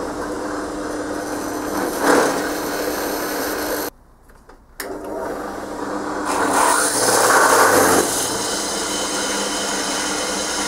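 Bench drill press motor running with a 7 mm drill bit cutting into a cast Zamak (zinc alloy) bearing cap, louder and rougher as it bites about two seconds in and again from about six to eight seconds in. The motor stops just before four seconds in and starts again about a second later.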